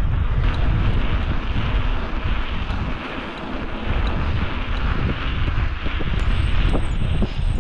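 Wind buffeting the microphone of a camera on a moving bicycle, over a low rumble from the tyres on rough, patched tarmac. The noise eases briefly about three seconds in, then picks up again.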